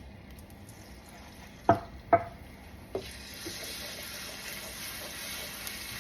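Two sharp knocks, then from about three seconds in ginger-garlic paste sizzling steadily in hot oil in a pan.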